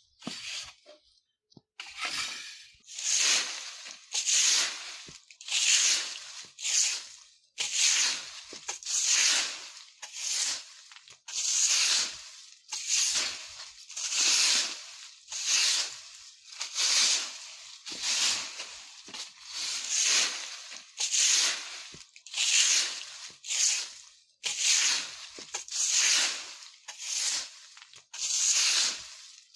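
Broom sweeping dry fallen leaves over the ground in steady swishing strokes, about one a second, with the leaves rustling and crunching under each stroke. A brief pause comes at the start before the strokes resume.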